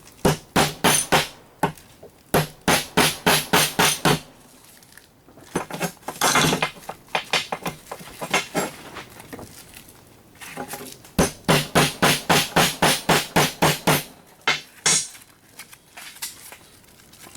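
Quick runs of hammer blows on metal, about five a second, driving the riveted pins out of an old Rival can opener.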